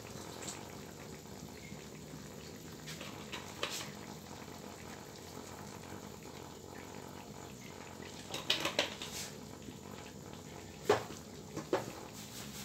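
Mixed vegetables simmering in their liquid in a wok, a steady low hiss, with a few sharp clicks and knocks from about the middle on.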